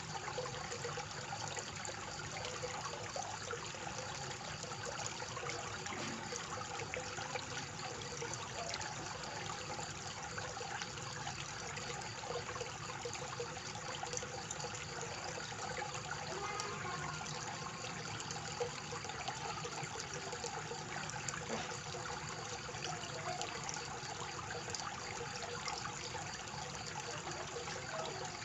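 Water from a koi pond fountain splashing and trickling steadily into the pond.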